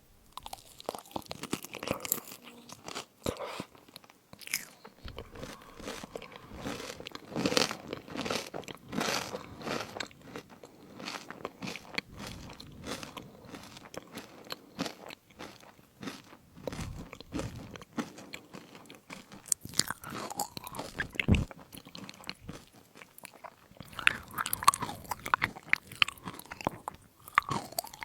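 Close-miked crunching and chewing of fruit crisps: many sharp, irregular crackles as mouthfuls are bitten and chewed.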